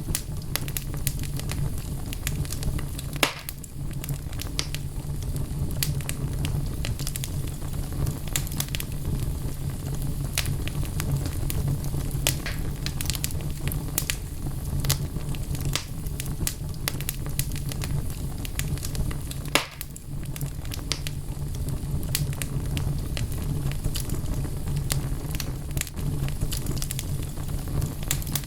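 Log fire in a fireplace crackling, with frequent sharp pops over a steady low rumble; two louder pops come about 3 seconds in and near 20 seconds.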